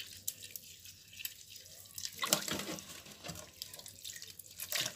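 A hand squeezing boiled dried meat in a pot of palm-oil broth, the liquid splashing and dripping back into the pot in irregular splashes, loudest about two seconds in and near the end.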